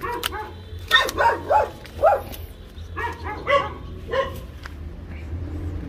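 A dog barking repeatedly: several short barks and yelps over the first four seconds or so, then it stops.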